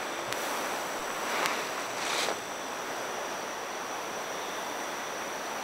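Steady outdoor background hiss with a thin, steady high-pitched whine, and two soft swells of noise in the first half.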